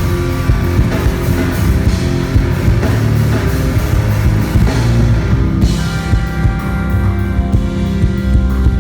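Rock band playing loudly, with drum kit and guitars.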